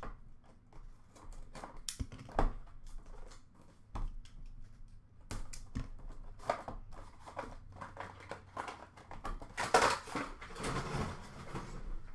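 A cardboard trading-card box and its inner case being handled and opened by hand: scattered clicks, taps and rustles of cardboard and packaging, with a louder rustling stretch about ten seconds in.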